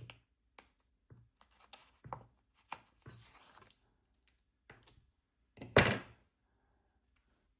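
Light taps, clicks and brief rustles from handling a planner and sticker sheets as stickers are peeled and pressed onto the pages, with one louder thunk about six seconds in.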